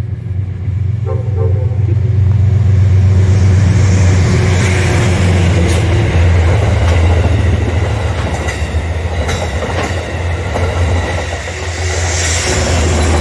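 Amtrak passenger train passing close by at speed: the rumble and rush of steel wheels on the rails with a few sharp clicks, over the steady low drone of its diesel locomotive. The drone swells near the end as the GE P32 locomotive at the rear goes by.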